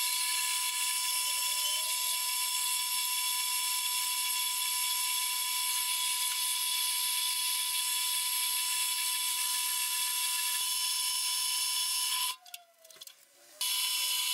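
Small horizontal metal-cutting bandsaw running, its blade cutting through aluminium flat bar: a steady whine with a high hiss. The sound drops out for about a second near the end.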